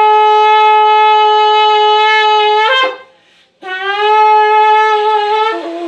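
A long, spiralled antelope-horn shofar sounding two long, steady blasts. The first is already sounding and flips up to a higher note as it ends about three seconds in. After a brief pause for breath, the second blast starts and drops to a lower note just before it stops.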